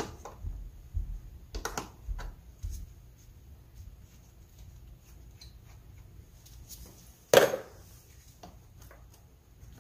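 A 10 mm wrench working the positive battery terminal clamp: a run of small metallic clicks and taps over the first few seconds, then one louder clunk about seven seconds in.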